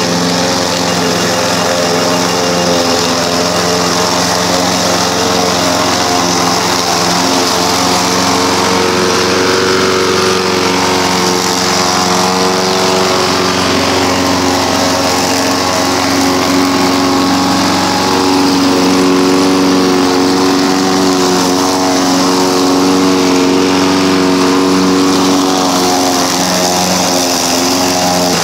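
Radio-controlled petrol rotary lawn mower running steadily as it drives itself through tall grass, the engine and blade cutting.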